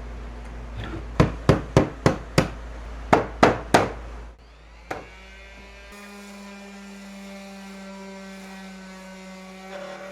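A quick run of about eight sharp knocks, fastening or tapping in the cabinet's backing boards, in two rapid groups with one more knock after a pause. From about halfway, a steady hum holds one pitch.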